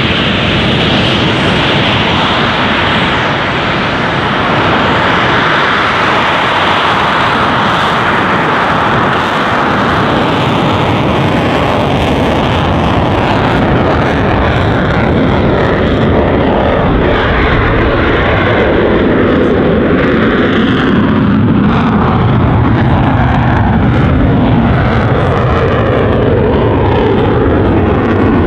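Eurofighter Typhoon's twin Eurojet EJ200 turbofans at takeoff power with afterburners lit, as the jet runs down the runway and climbs away. A loud, continuous jet noise, with sweeping, shifting tones from about halfway through as the jet passes and rises.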